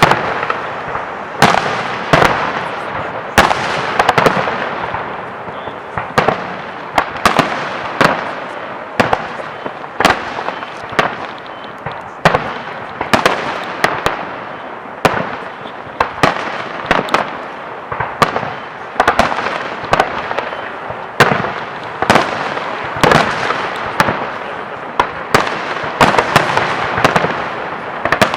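Fireworks display: aerial shells bursting in a steady run of sharp bangs, about one or two a second, over continuous crackling.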